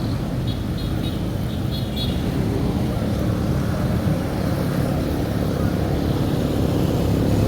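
Street traffic: a motor vehicle's engine running close by with a steady low hum that grows slowly louder, and a few short high chirps in the first two seconds.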